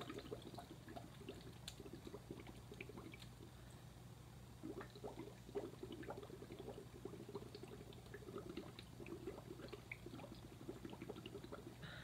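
Breath blown through a drinking straw into a small cup of red cabbage juice: a faint, rapid bubbling, dropping off briefly about four seconds in.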